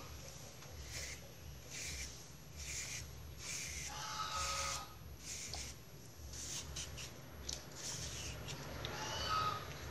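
Green banana being shaved lengthwise into thin slices with a hand slicer: a scraping rasp with each stroke, about one a second. A short pitched call sounds about four seconds in and again near the end.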